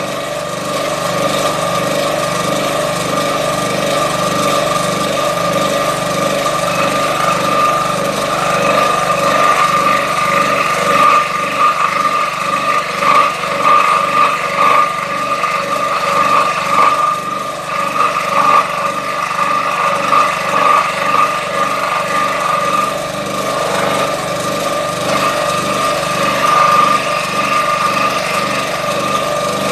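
Scroll saw running with a pin-end blade, cutting through MDF: a steady machine tone with the fast, even stroking of the reciprocating blade, the level wavering a little as the board is fed into the blade.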